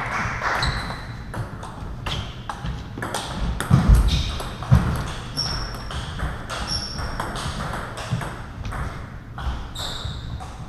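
Table tennis balls clicking against bats and tables, irregular sharp ticks with short high pings, from the match and neighbouring tables. Two heavier thumps come around four and five seconds in.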